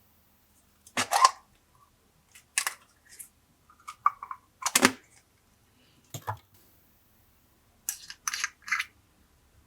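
Glossy slime being pressed and worked by hand, making a string of short wet pops and clicks with pauses between, three in quick succession near the end.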